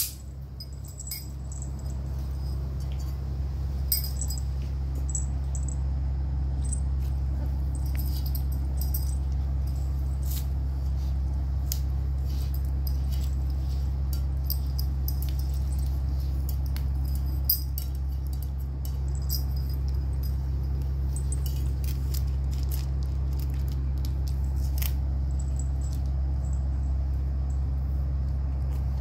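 Young puppies eating dry kibble from a metal bowl: scattered light clicks and crunches of pellets against the metal and in their mouths, over a steady low hum.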